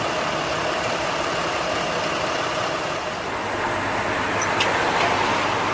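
A vehicle engine idling steadily under street noise.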